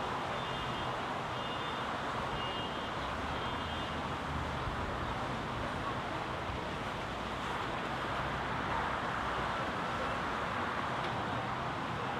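Steady outdoor wash of distant road traffic mixed with the spray of a large jet fountain on the lake, with a low rumble underneath. Short high-pitched pips repeat through the first few seconds.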